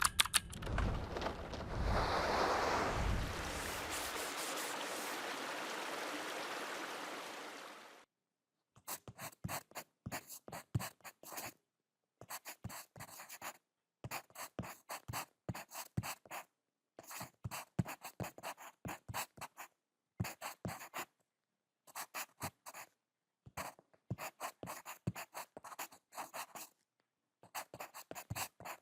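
A steady noisy opening sound with a few low knocks fades out about eight seconds in. Then a pencil writes slowly on paper: groups of short scratchy strokes with pauses of about a second between them.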